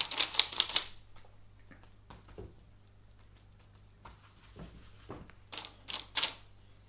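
Oil-paint brush scratching and dabbing on paper: a quick run of short scratchy strokes at the start, then a few more strokes later on.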